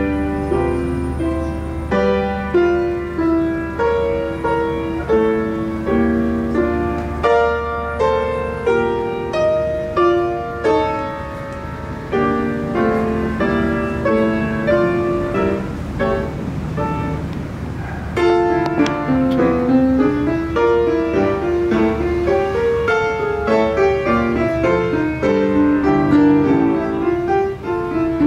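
Solo grand piano playing, single notes and chords struck in a steady pulse, the playing turning fuller and busier about two-thirds of the way through.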